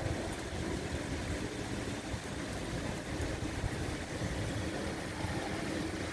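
Steady rain falling on trees, with a low, unsteady rumble underneath.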